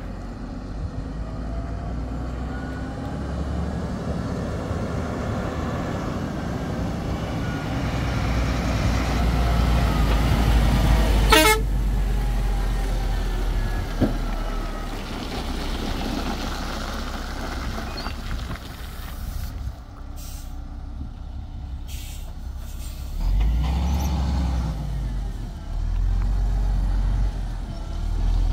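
Diesel engine of a heavy dump truck running as the truck approaches and draws up close, growing louder and deeper, with a brief sharp burst about halfway through and a few short bursts of noise about two-thirds of the way through as it slows.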